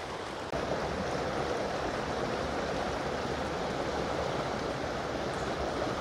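Creek water flowing steadily, a constant rush of water that gets a little louder about half a second in.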